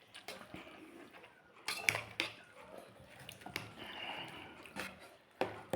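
Utensils clinking and tapping against dishes during a meal: a few sharp clicks and knocks, the loudest about two seconds in.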